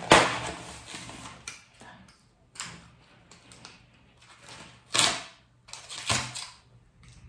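A cardboard shipping box being opened and unpacked: several bursts of cardboard and packaging rustling and scraping, loudest right at the start and again about five seconds in.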